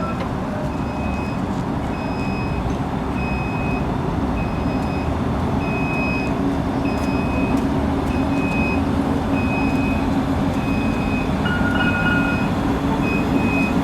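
A tram's reversing warning beeper sounds a short high beep about every 0.7 s as the car backs up to turn around, over a steady low rumble of motor and traffic noise. A lower single tone sounds briefly near the end.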